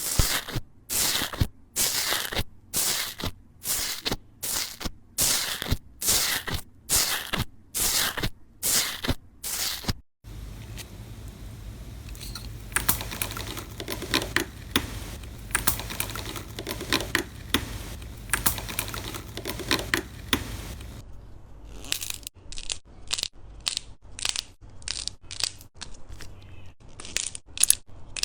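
Slime being worked by hand: a steady run of sharp squishing strokes about one and a half a second, then a stretch of dense crackling over a low hum from about ten seconds in. Near the end, regular strokes return at about the same pace.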